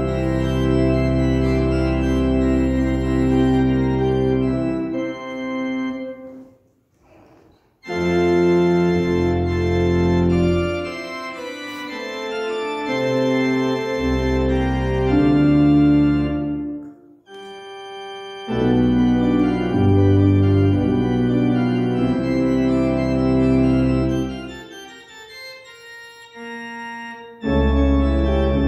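Church organ playing sustained full chords over a deep pedal bass, in phrases. It breaks off briefly about six seconds in and again around seventeen seconds, and plays quieter, thinner chords for a few seconds near the end before the full sound returns.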